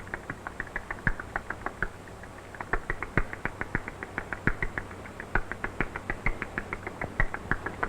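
Barn owl nestlings calling for food: a rapid, uneven run of short, high chirping clicks, several a second, with a brief lull about two seconds in.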